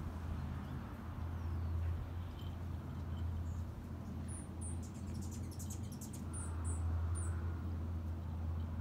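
Steady low outdoor hum with a few faint, very high, short bird chirps in pairs about halfway through and again a little later, and a brief run of light clicks between them.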